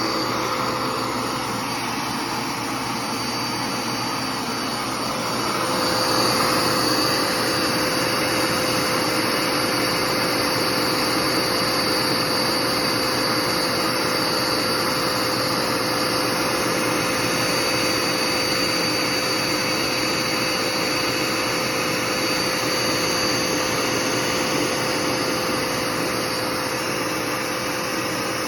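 Dirt Devil PowerMax Pet vacuum cleaner running steadily, a rushing motor-and-air noise with a high whine over it, getting louder about five and a half seconds in.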